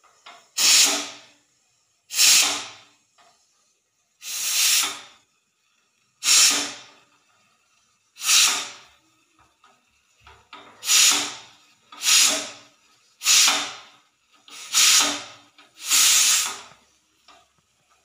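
Pressure cooker venting steam through its whistle valve in ten short hissing bursts, each lasting about a second, as the whistle weight is lifted by hand and let drop; the bursts come every second or two, closer together in the second half.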